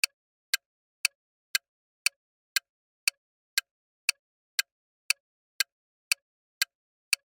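Clock-tick sound effect marking a countdown timer: sharp, evenly spaced ticks, about two a second, with nothing in between.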